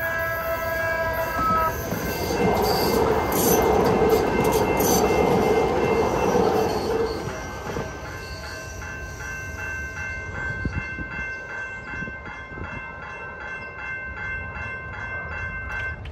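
Railroad crossing bell dinging rapidly and steadily while a San Diego MTS trolley passes, its rolling noise loud for several seconds starting about two seconds in, with sharp wheel clicks over the crossing. The bell stops near the end as the gates lift.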